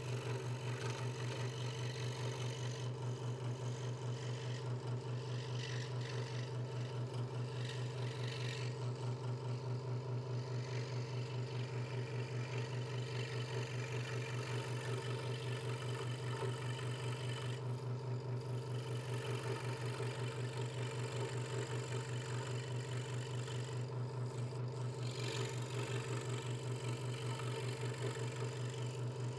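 Hegner Multicut 2S scroll saw running at steady speed, its blade stroking up and down through a thin wooden board. A steady hum with a fast, even chatter from the blade strokes.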